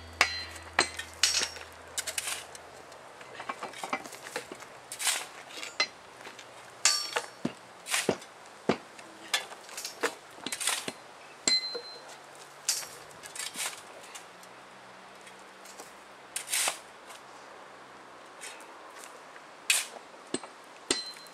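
Metal-on-metal hammer strikes on railway track hardware: sharp, irregular clanks, some with a short ringing tone, during hand track-laying work.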